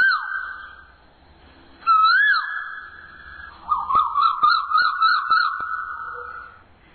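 Asian koel calling. Two loud whistled notes that rise and then fall come about two seconds apart, followed by a quick run of about eight short rising notes.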